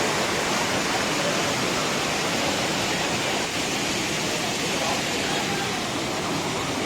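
Steady, unbroken rush of water falling at a waterfall.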